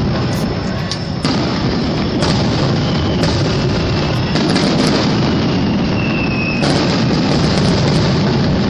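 Aerial fireworks bursting in quick succession: a continuous rumble of booms, with fresh bursts and crackling every second or so, mixed with music.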